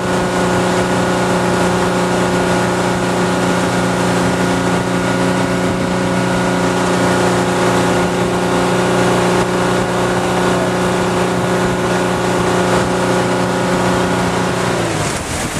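Tow boat's engine running steadily at speed, one even pitched drone over the rush of wind and wake water. The engine note drops away near the end.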